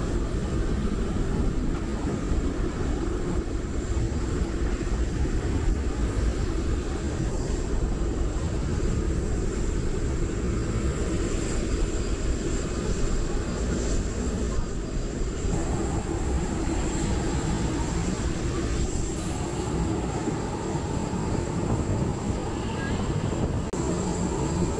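Steady airport apron noise: a constant low rumble with a thin, steady high-pitched whine above it, from a parked jet airliner and the ground vehicles around it.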